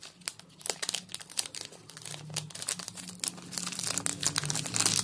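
A foil-lined kraft-paper snack pouch being torn open by hand: crinkling and crackling of the stiff packaging, growing denser and louder over the last second and a half.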